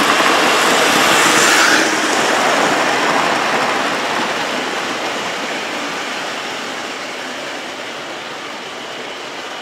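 OO gauge model trains headed by Britannia-class locomotives running on the track: a steady rumble and rattle, loudest about a second and a half in, then fading as they run away.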